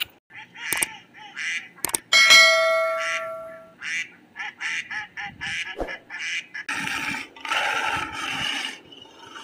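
Waterfowl quacking in a run of short, repeated calls. A bright ringing chime sounds about two seconds in, and near the end the sound turns louder and rougher.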